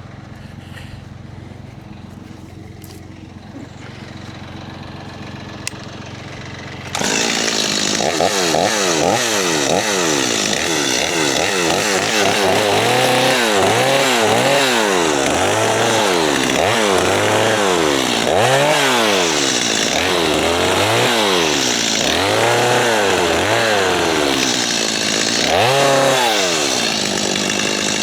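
A low steady engine hum, then about seven seconds in a chainsaw comes in suddenly and loud, revving up and down again and again as it cuts limbs off a cedar tree.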